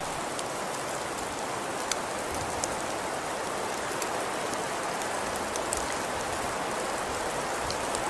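Steady hiss of wet snow falling on a street, with a few faint ticks.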